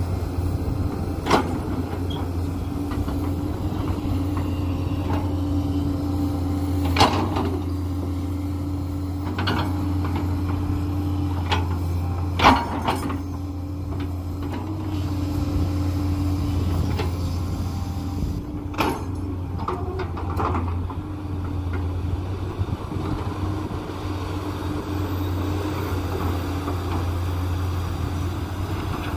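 JCB 210 tracked excavator's diesel engine running steadily as it digs, with a handful of sharp knocks as the bucket works the soil and stones. The loudest knocks come about one, seven and twelve seconds in.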